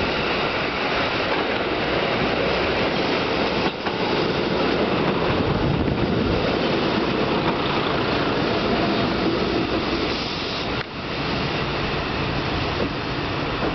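JR Kyushu KiHa 125 two-car diesel railcar arriving at a station: its diesel engine running and its wheels on the rails as it passes close by and runs on along the platform to stop. The noise is loudest as the cars go past.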